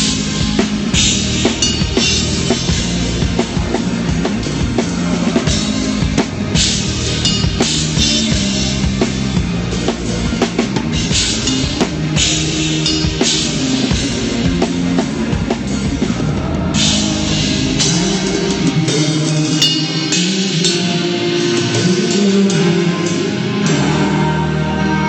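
Rock band playing live at a sound check: drum kit with bass drum and crashing cymbals over bass and chords. The deep low end drops out for a few seconds past the middle, then comes back near the end.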